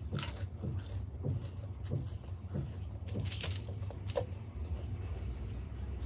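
Mouth chewing a whole dahi golgappa: the crisp puri shell crunches and the yogurt filling squelches in an irregular run of crackles and clicks, with one louder crackle about three and a half seconds in. A steady low hum runs underneath.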